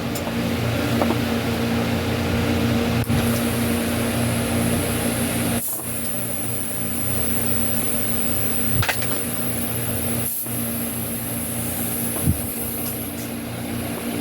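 Small electric air compressor running steadily with a hum, pumping air into a bicycle tire's inner tube. It dips briefly a couple of times.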